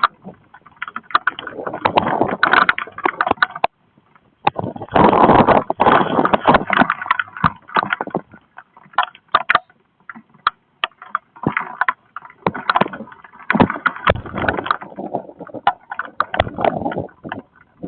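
Strong squall-line wind gusts and heavy rain, buffeting the microphone in surges with crackling. It drops to brief lulls about four and ten seconds in.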